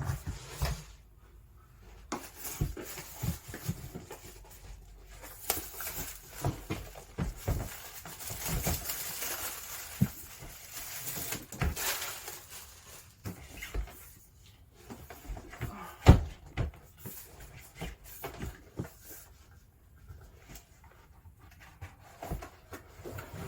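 A cardboard model-kit box being opened and its packaging handled: irregular rustling and scraping with scattered knocks, the rustling densest in the middle and one sharper knock about two-thirds of the way through.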